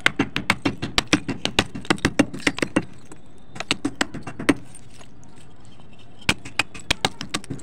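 A dried clay roll being crushed by hand on a stone bowl, the brittle clay cracking and snapping into flakes. There is a fast run of crisp snaps, a pause, a shorter burst, then a few more snaps near the end.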